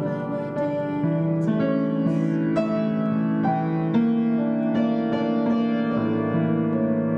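Piano playing a slow piece: sustained chords and melody notes, changing about once a second.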